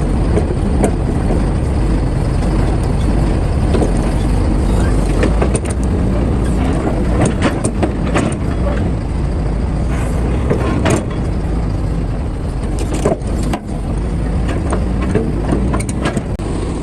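Heavy diesel earthmoving machinery running steadily at work, an excavator loading a dump truck, with a low rumble and scattered sharp knocks, several clustered in the middle and more near the end.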